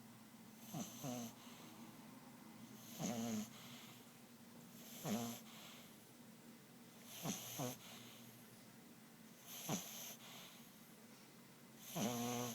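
English bulldog puppy snoring in its sleep, a fluttering snore about every two seconds, six in all.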